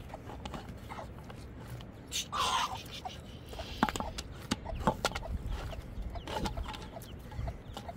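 Chickens clucking, a string of short calls with one louder, harsher call about two and a half seconds in.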